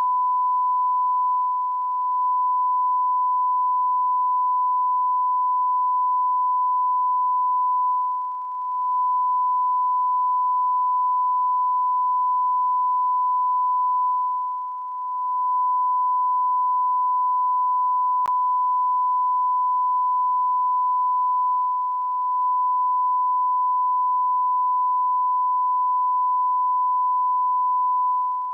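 Continuous electronic beep: a single pure, steady high-pitched sine tone held without a break. It dips briefly and slightly in loudness about every six or seven seconds.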